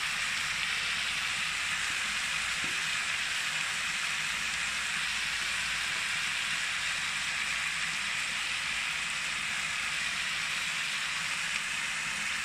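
Green peas and soaked basmati rice frying in hot oil in a pan: a steady sizzle.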